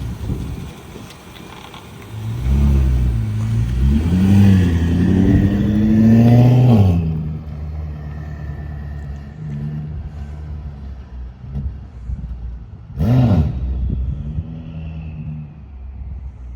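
BMW M5 Competition's twin-turbo V8 being revved: the engine note climbs for a few seconds and drops back about seven seconds in, then runs low and steady, with one short rev blip near the end.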